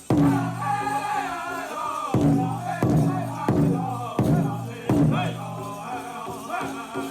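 Powwow drum group singing a chicken dance contest song, high voices over steady beats on the big drum, about one beat every 0.7 s.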